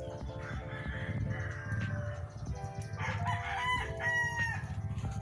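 A rooster crowing, a call of several held pitched notes, clearest in the second half, over a low steady rumble.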